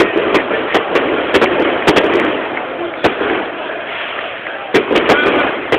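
Firecrackers going off in sharp, irregular bangs, about a dozen in clusters with a lull in the middle, over the steady din of a stadium crowd.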